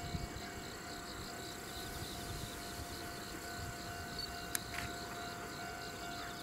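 Insects chirping in a fast, even rhythm in trackside grass over a steady high hum and a low rumble, with one sharp click about four and a half seconds in.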